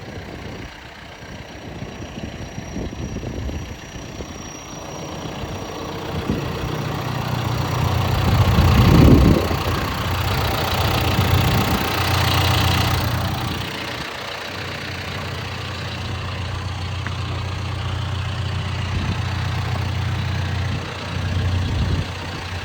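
John Deere 310SK backhoe loader's diesel engine idling steadily, with a louder rush of noise about eight to thirteen seconds in.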